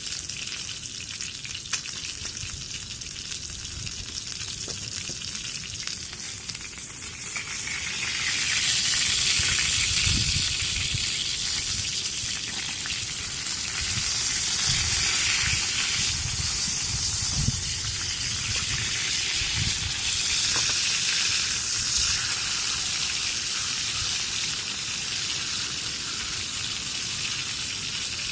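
Food sizzling as it fries in a cast-iron pan, a steady hiss that gets louder about eight seconds in.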